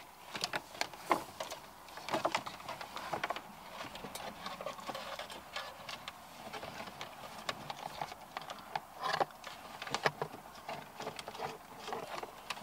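Car wiring loom and plastic connectors being handled and pushed behind dashboard trim: irregular clicks, taps and rustling of cables against plastic.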